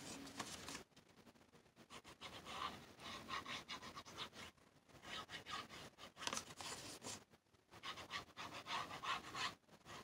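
Soft rustling and rubbing of paper, in several short spells, as a paper cutout is handled and a fine-tip glue bottle is run along its edges.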